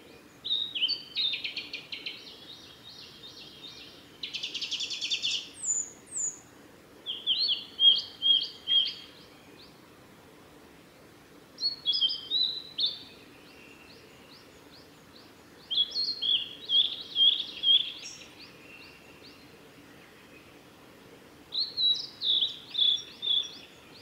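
Male blue-and-white flycatcher singing: about six loud phrases of clear, quick whistled notes with pauses of a few seconds between them. One phrase about four seconds in includes a harsh buzzy stretch.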